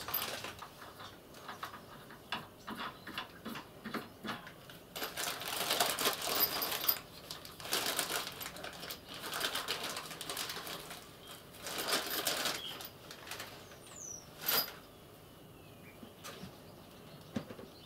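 Clear plastic bag of sofa casters crinkling and rustling as it is handled, in several bursts, with a sharp click about fourteen and a half seconds in.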